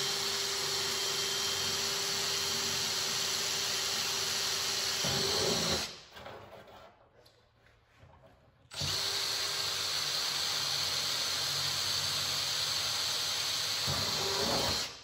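Cordless drill running steadily as it bores rivet holes through thin aluminium sheet. It makes two runs of about six seconds each, with a pause of about three seconds between.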